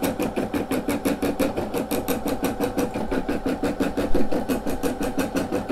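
Brother SE600 embroidery machine stitching a design: the needle strokes up and down in a rapid, even rhythm, with a steady tone underneath.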